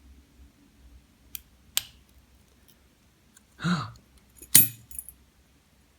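Lock pick and tension wrench clicking in an American 1100 series padlock as it is picked: a few light metal clicks, then a louder clatter and a sharp metallic snap about four and a half seconds in, followed by smaller clinks, as the lock opens.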